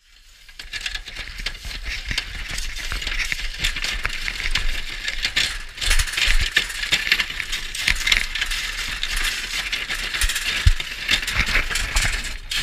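Dense rattling and gritty scraping from a homemade crosskart buggy sliding over sand with a front wheel torn off, its bare hub and suspension arm dragging through the dirt, heard from a camera mounted on the frame, with a low rumble underneath.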